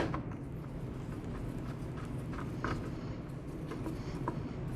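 A few faint, light clicks and taps over a low steady hum, from the mower's engine cover being handled and fitted back into place.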